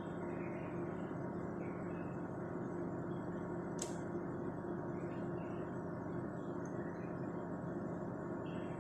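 Microwave oven running with a steady hum, near the end of its three-minute cooking cycle, with one sharp click about four seconds in.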